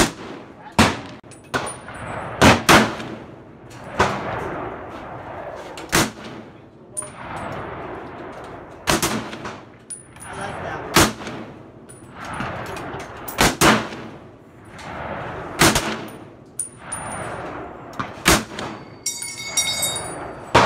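A string of about fifteen rifle shots at irregular intervals, some in quick pairs, each with a short echo rolling off across the range, from an M1 Garand and shooters on nearby lanes. Near the end comes a brief high metallic ringing.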